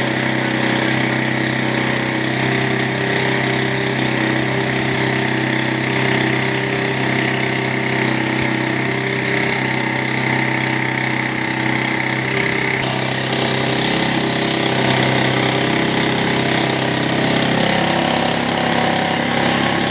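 Small single-cylinder motorcycle engine running steadily at a constant speed, belt-driving an air compressor pump.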